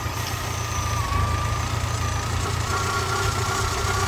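Freshly rebuilt Volkswagen Golf Mk2 petrol four-cylinder engine idling steadily just after starting, still on break-in, with a thin steady whine over the idle. The owner hears a valve or hydraulic lifter sticking somewhere in the middle of the head.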